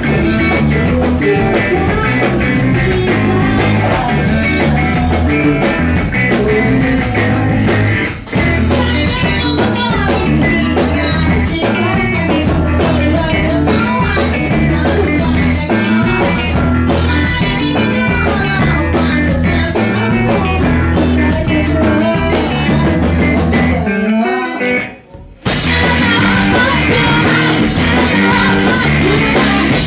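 Math rock band playing live: electric guitars, bass and drums, loud and dense. The band drops out for an instant about eight seconds in, and stops dead for about a second near the end before crashing back in.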